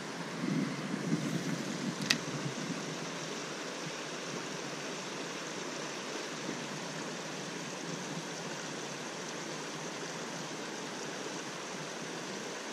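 Shallow trout stream rushing steadily over a rocky riffle, an even hiss of moving water. A single sharp click sounds about two seconds in.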